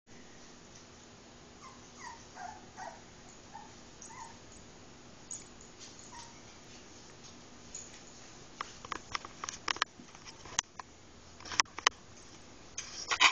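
Young puppies whimpering in short, high squeaks, several in a row between about two and four seconds in. In the second half come sharp clicks and knocks, the loudest near the end, as the camera is handled.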